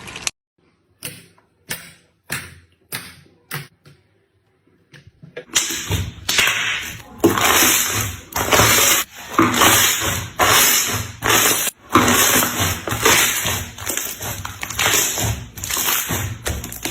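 Slime being squished and slapped by hand: about half a dozen short, separate squishes at first, then, from about five and a half seconds in, a quick unbroken run of wet squelches and slaps that stops sharply near the end.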